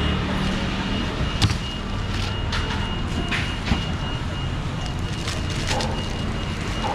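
Steady background din at a market fruit stall, with a low hum and a thin steady high tone. A few sharp clicks and crinkles come through as a clear plastic bag is handled around a carved pineapple.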